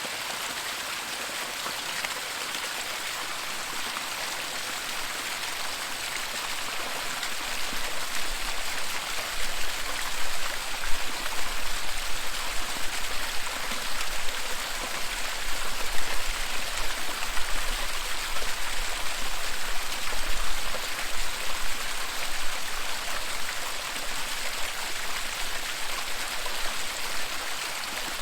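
Waterfall rushing: a steady hiss of falling water. It swells louder, with a low rumble underneath, from about eight seconds in until a little past twenty seconds, then eases back.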